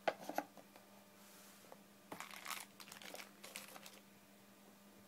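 Clear plastic bags wrapping boxed accessories crinkling as they are handled: a few sharp clicks at the start, then two bursts of crinkling about two and three and a half seconds in.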